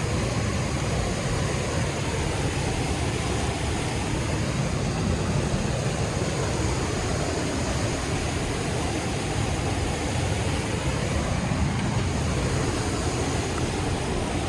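River rapids rushing: a steady, unbroken noise of white water.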